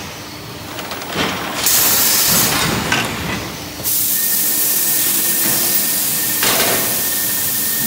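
Maoxing MX700-1200 vacuum forming machine at work: a short hiss of air about two seconds in, then a steady loud hiss from about four seconds on with a faint thin whistle in it, and a few knocks.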